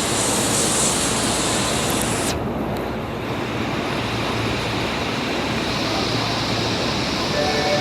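Steady rushing running noise of an Osaka Metro Tanimachi Line subway train, its hiss thinning a little about two and a half seconds in. Just before the end the train's door chime starts, a few steady tones; on these cars it is the known abnormal-sounding chime.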